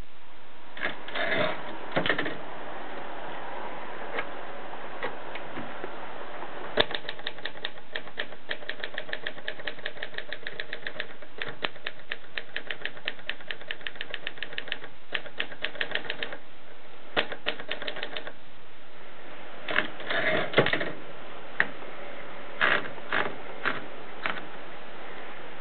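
Olivetti 45 typewriter being typed on: sharp key strikes in a fast, even run of about five a second through the middle, with heavier clusters of clatter near the start and again near the end.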